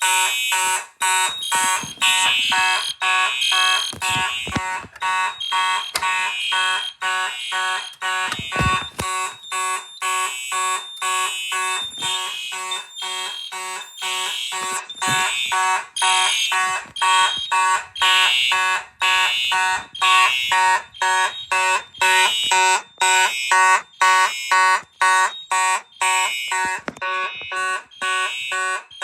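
Several fire alarm horns sounding at once in rapid, even pulses of overlapping tones, about two a second. A few low thumps come through, the strongest about eight seconds in.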